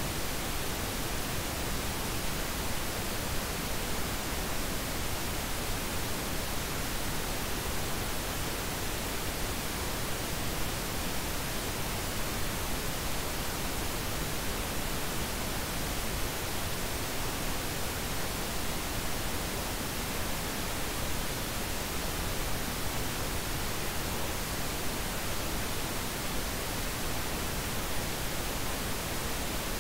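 Steady hiss of synthetic noise, spread evenly from deep to very high pitches and unchanging throughout: the sound bed of a subliminal 'frequency' track.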